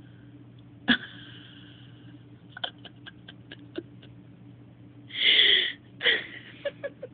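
A five-day-old baby hiccuping: one sharp hic about a second in, then a run of small mouth clicks, and near the end a louder half-second breathy noise followed by a shorter one.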